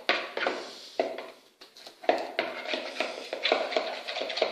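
A spoon stirring glue and baking soda in a bowl, making irregular clinks and scrapes against the sides, with a short pause about a second and a half in.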